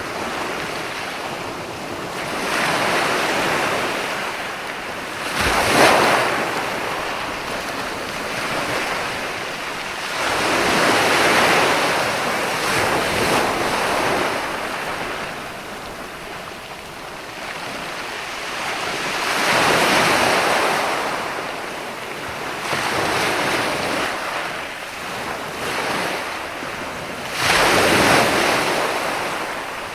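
Ocean waves breaking and washing up the shore, swelling and fading in surges every several seconds. There is a sharper crash about six seconds in and another near the end.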